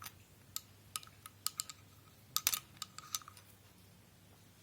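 Small metal tool clinking against the metal fittings of a converted water-pump motor: about a dozen light metallic clicks and taps, busiest about two and a half seconds in, then nothing after about three seconds.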